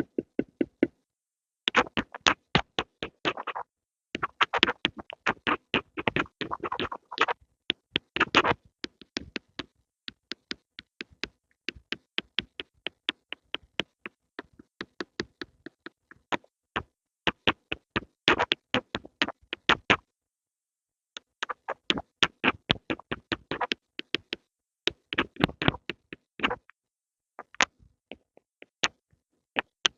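Pencil making quick runs of sharp taps and clicks, several a second. There are short pauses about a second in and again about twenty seconds in.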